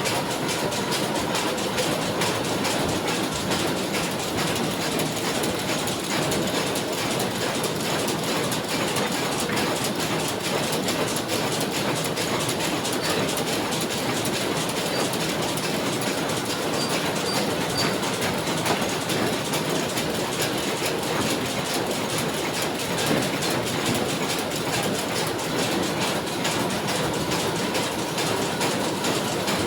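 A machine running with a steady, rapid clatter and a faint steady whine.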